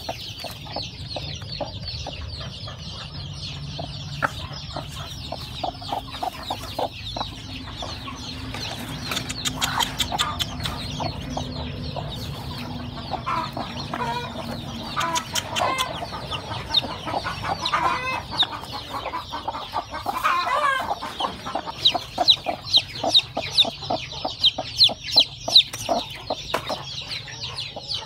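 Newly hatched chicks peeping rapidly and continuously, with a broody hen's lower clucks in the middle stretch. The peeping grows louder near the end.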